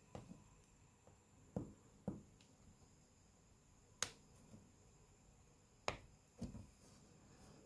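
Faint, scattered clicks of fingers and a thin metal pick working at the frame and small parts of a Samsung Galaxy S4 phone being taken apart. There are about six sharp ticks at uneven intervals, the clearest about four and about six seconds in.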